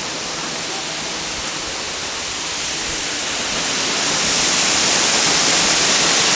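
Russell Falls, a tiered waterfall, giving a steady rush of falling water that grows louder about four seconds in.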